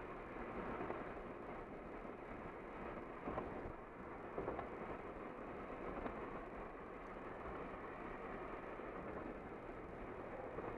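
Car driving at highway speed, giving steady tyre and road noise, with a couple of light bumps a few seconds in.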